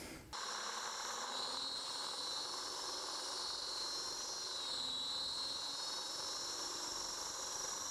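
Air blast spinning a homemade roller-bearing lens guard in front of a GoPro, flinging liquid off the lens: a steady hiss with a high whine that wavers slightly near the middle.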